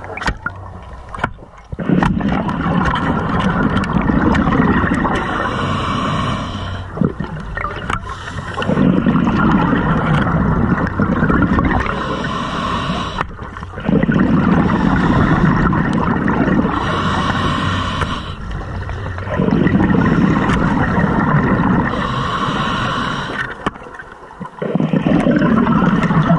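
Scuba regulator breathing underwater: loud bubbling and gurgling of exhaled air alternating with a quieter hiss, in slow, even breaths about every five to six seconds.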